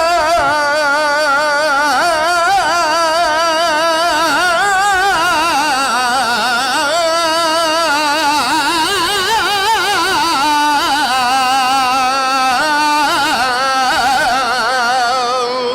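A male flamenco cantaor singing a minera, the cante de las minas, in one long drawn-out melisma with wide, fast vibrato. The wordless phrase winds up and down in pitch and ends just before applause breaks out.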